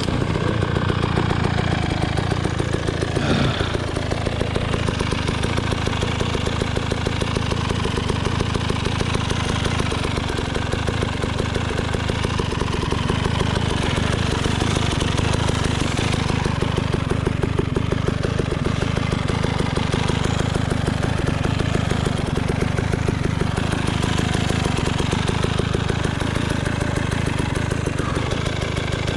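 KTM 300 XC-W's two-stroke single-cylinder engine idling steadily, with no revving.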